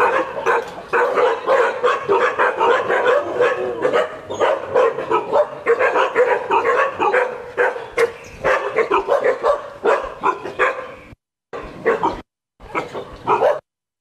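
Many dogs barking and yipping at once in a dense, continuous chorus. In the last few seconds the sound cuts out to silence several times.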